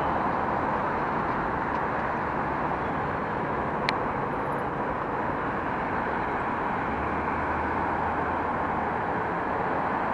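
Steady road traffic: cars, vans and a box truck passing on a busy multi-lane street. A low engine drone rises briefly about seven seconds in, and there is a single short click about four seconds in.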